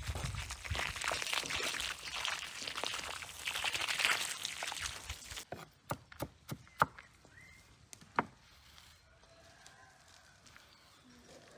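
A stream of water splashing and trickling onto garden soil and plants, cutting off about five and a half seconds in. Then a knife chops shredded cabbage on a wooden cutting board: a handful of sharp knocks, the last one about two seconds after the others.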